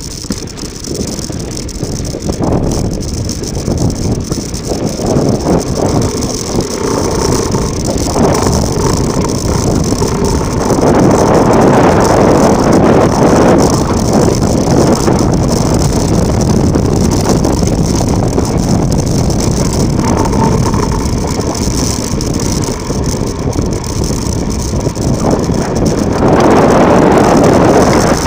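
Mountain bike descending fast over loose volcanic ground: a steady rush of wind and tyre noise that grows louder about eleven seconds in and again near the end.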